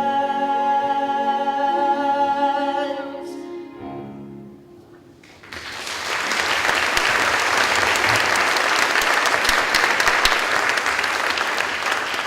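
The song ends on a long held chord that fades away over the first four seconds or so. About five seconds in, a theatre audience breaks into applause that keeps going, easing off near the end.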